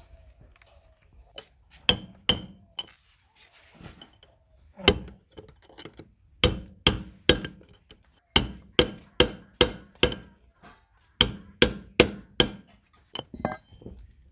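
Hammer blows on a steel punch against a tractor's front wheel hub while the front wheel bearing is fitted. Sharp metallic strikes, each with a short ring: a few single taps at first, then quick runs of four to six blows about three a second.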